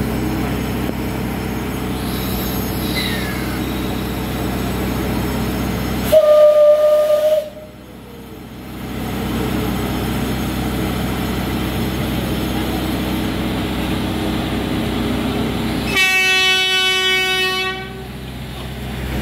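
Two train whistle blasts exchanged between the SL-25 Shay geared steam locomotive and a Puyuma express train's horn: a clear single-note blast about six seconds in lasting over a second, and a richer, buzzier blast about sixteen seconds in lasting nearly two seconds. A steady low hum runs under both.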